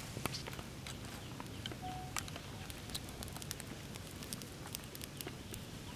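Small fire of dry twigs and sticks crackling, with irregular sharp snaps scattered throughout.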